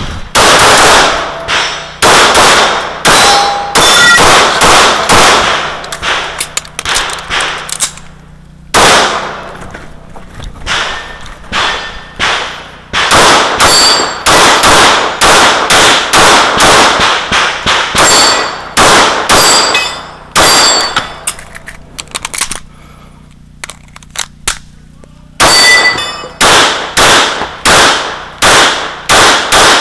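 Sig P226 9mm pistol fired in quick strings of shots at steel targets, with the clang and ring of steel after many of the hits. The strings are broken by two short pauses.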